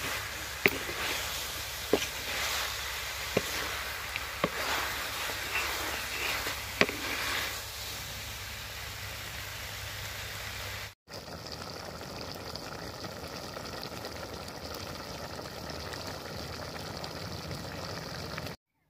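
Cauliflower and tomato sizzling in a metal kadai while a spatula stirs them, knocking sharply against the pan five times, about one every second or so. After a cut about halfway, a steady sizzling hiss as the cauliflower curry simmers in the pan.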